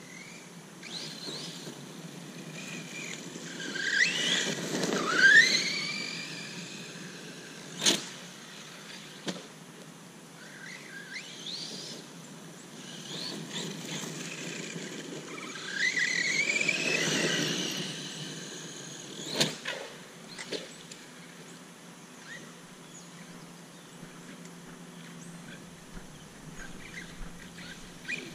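Redcat Landslide XTE 1/8-scale RC monster truck's brushless electric motor whining up in pitch as it accelerates hard, twice, with two sharp knocks of the truck hitting the ground.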